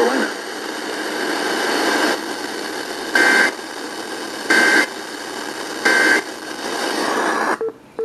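Three short data bursts of an Emergency Alert System end-of-message code, played through an FM clock radio: each about a third of a second long and about 1.4 s apart, with steady radio hiss between them. Near the end the radio's sound cuts off with a click.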